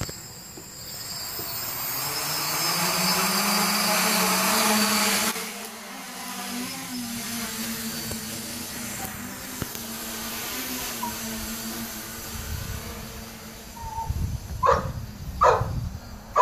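SK450 quadcopter's electric motors and propellers spinning up for takeoff, a hum rising in pitch with a loud rush that drops away about five seconds in, then a steady hum as it flies. A dog barks two or three times near the end, over wind rumble on the microphone.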